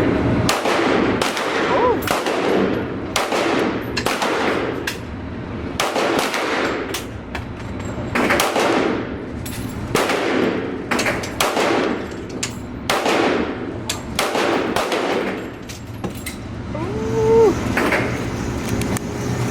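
Gunshots at a shooting range, fired irregularly about once or twice a second, each echoing off the walls, over a steady low hum. The firing dies away near the end.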